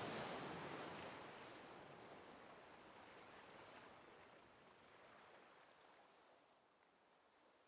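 Faint, steady rushing ambience that fades away gradually.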